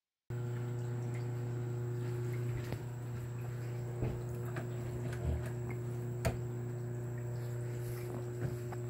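A steady low machine hum with a few fixed tones, which starts abruptly just after the beginning, with scattered light clicks and knocks throughout.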